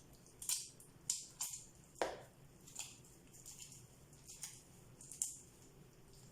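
Hands working oiled msemmen dough: a series of short, irregular squelches and pats.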